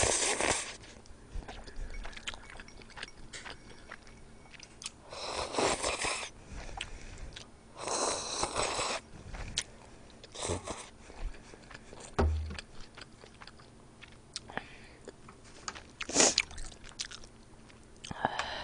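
Close-miked eating: a woman slurping jjamppong noodles and broth from a bowl, about five loud slurps a few seconds apart, with quieter chewing and small mouth clicks in between.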